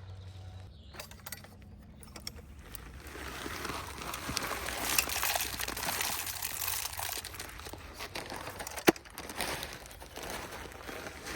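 Packaging rustling and crinkling as it is handled, with scattered small clicks and one sharp click about nine seconds in.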